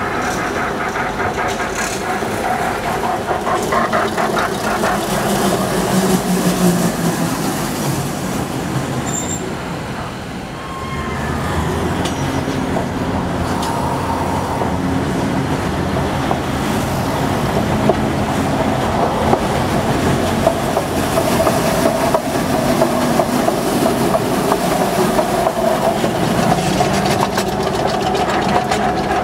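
Botchan train, a diesel-powered replica of a steam-locomotive tram, running along street tram rails. Its engine drones steadily under the noise of the wheels on the track, with a rhythmic clatter in the first few seconds.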